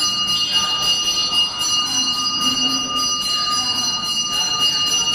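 Temple bells ringing rapidly and without a break, a dense steady ring of several overlapping metallic tones, as during an aarti.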